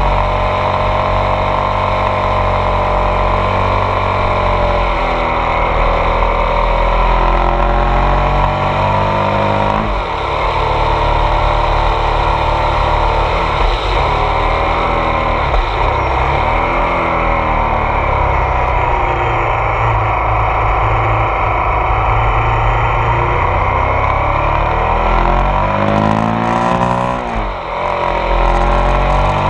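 Ducati Multistrada 1200 S DVT's Testastretta DVT V-twin engine pulling uphill. Its pitch drops sharply and climbs again several times as the revs fall and rise: about ten seconds in, twice in the middle, and near the end.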